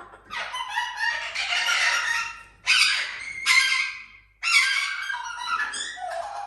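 Parrot squawking: a run of loud, harsh screeching calls, with several abrupt loud outbursts in the middle.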